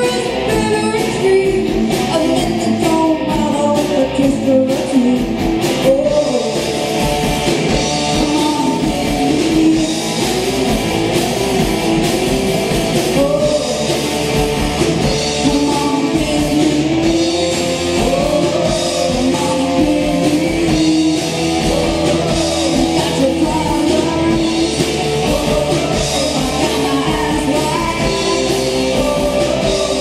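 Live rock band playing: a singer over distorted electric guitars and a drum kit. The sound gets fuller and brighter about six seconds in.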